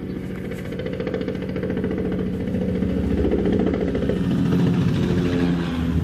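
Low-flying spray helicopter approaching and passing overhead: rapid rotor blade chop over a steady engine tone, growing louder as it comes over, with a slight drop in pitch near the end.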